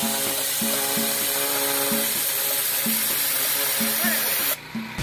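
Pressure washer jet spraying against a stucco wall, a steady hiss of water that cuts off suddenly about four and a half seconds in. Background music with repeated notes plays beneath it.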